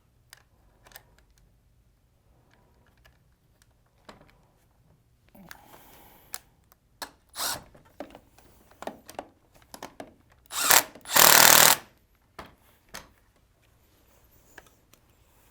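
Small clicks and knocks of plastic and metal parts being handled and fitted into an office chair's arm, then a power drill-driver runs for about a second, in two short pulls, driving the arm's Torx screw back in.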